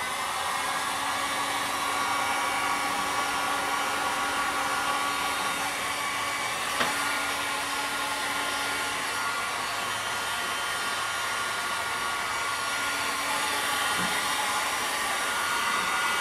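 Harbor Freight heat gun running on high: a steady blowing rush with a faint hum, and one brief click about seven seconds in.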